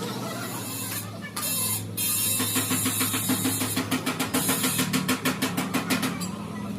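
A machine running with a steady low hum. About two and a half seconds in, a rapid rhythmic rattle of several strokes a second starts, then stops near the end.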